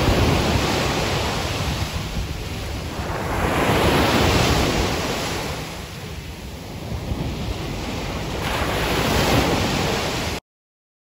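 Ocean surf breaking on a sandy beach: a steady wash of noise that swells as each wave breaks and ebbs between them, cresting about three times. It cuts off abruptly near the end.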